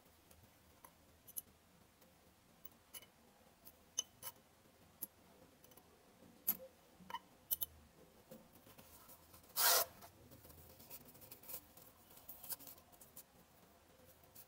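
Scattered light clicks and taps of steel tweezers and the tiny metal parts of a vape pod coil being handled and rebuilt, with one brief louder rustle about two-thirds of the way through.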